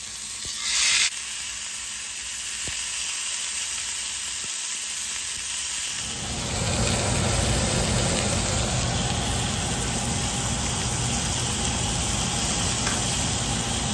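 Ribeye steak sizzling in a hot cast-iron skillet. There is a loud flare of sizzle about a second in as the steak is laid in the pan, then steady frying that grows fuller and louder about halfway through.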